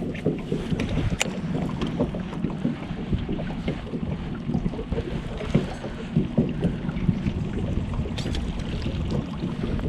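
Wind buffeting the microphone over a steady low rumble of water against a small fishing boat, with scattered light knocks.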